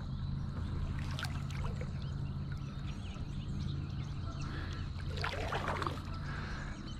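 Kayak paddle working the water: trickling and dripping off the blade, with a splashier stroke about five seconds in, over a low steady hum.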